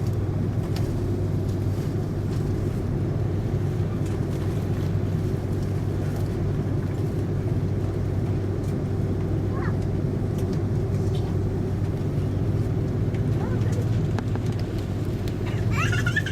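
Steady drone of an Airbus A330-300 airliner heard from inside the passenger cabin: engine and air-conditioning noise, with a low hum, holding steady without building up.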